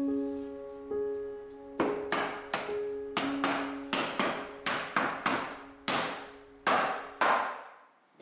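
Wooden stool legs being knocked home into the seat's sockets: a run of about a dozen sharp wooden knocks, roughly two a second, starting about two seconds in and stopping shortly before the end. Soft piano music plays underneath and fades out.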